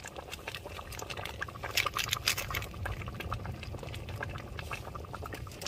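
Chicken gravy bubbling in a pot, with quick pops and crackles that are busiest about two seconds in.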